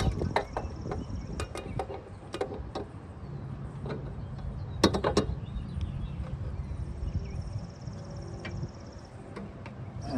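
Irregular clicks and knocks of hands and tools working parts on a lawnmower's belt and deck, with two louder knocks, one at the start and one about five seconds in. A faint high-pitched steady whine comes in twice.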